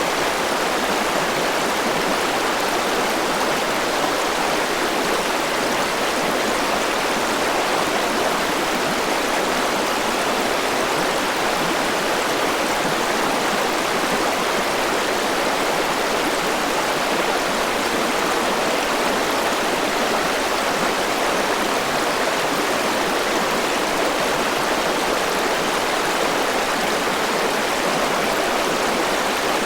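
Forest river rushing over rocks: a steady, even roar of flowing water.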